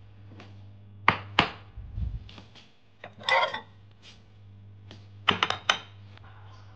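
Glass food containers knocking and clinking as they are handled and set down on a hard surface: two sharp knocks about a second in, a brief scraping rustle midway, and a quick cluster of knocks near the end, over a low steady hum.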